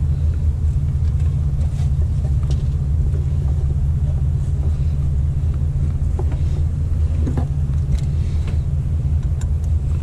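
A steady low rumble, with a few faint clicks and taps of hand tools at the water pump pulley.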